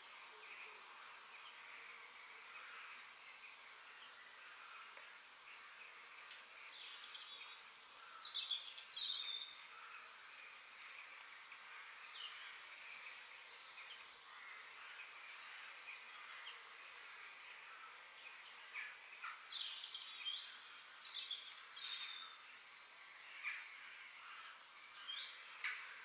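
Forest ambience: many birds chirping and trilling, with busier bursts of song about eight and twenty seconds in, over a steady background hiss.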